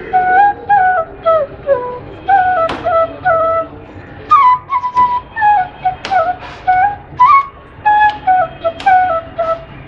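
A side-blown wooden flute played live, a melody of short separated notes with small slides between some of them.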